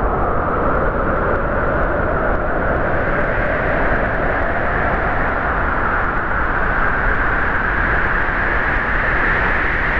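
Storm wind blowing at gale force: a loud, continuous rush of noise with no letup.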